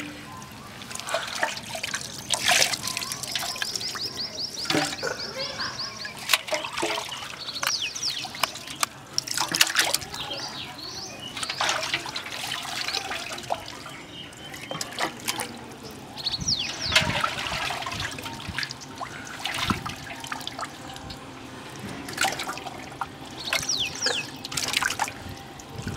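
Whole dressed chickens being dropped into a large aluminium pot of water, with irregular splashes and sloshing as each goes in.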